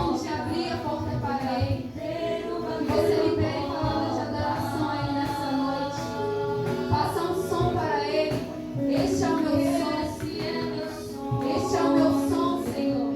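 Music: a song with a high singing voice over instrumental backing.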